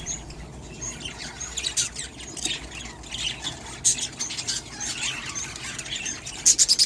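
Budgerigar chicks making short, scratchy chirps and squawks, scattered through, with a quick run of them near the end.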